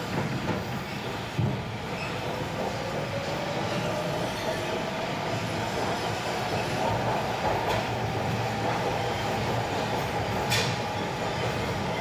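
Subway train running with a steady rumble and a whine that rises in pitch from about three seconds in and then holds, with a sharp click near the end.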